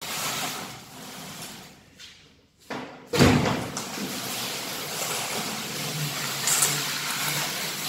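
A heavy cardboard box scraping and sliding across a tiled floor as it is pushed, with a loud thud about three seconds in.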